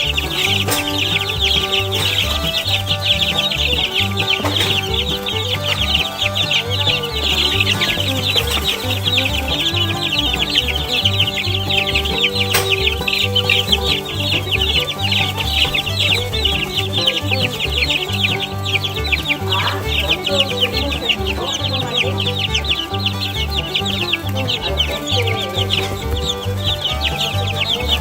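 A brood of two-week-old Barred Rock chicks peeping rapidly and continuously, a dense mass of high peeps, over background music with a rhythmic bass line.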